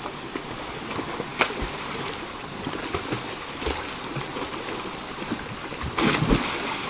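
Steady rush of a small river cascade pouring into a pool, with swimmers splashing in the water. A sharp click about a second and a half in, and a big splash near the end as a swimmer thrashes or plunges in.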